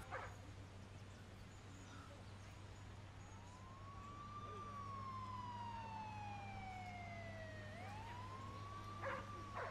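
Faint, distant emergency-vehicle siren wailing. Its pitch rises, falls slowly for a few seconds, then rises again near the end.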